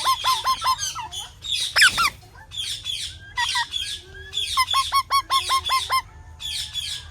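Psittacula parakeets calling: quick runs of repeated harsh, hooked chirps, about six a second, at the start and again from just before the middle, over steady busy higher chirping. There is one louder single call about two seconds in.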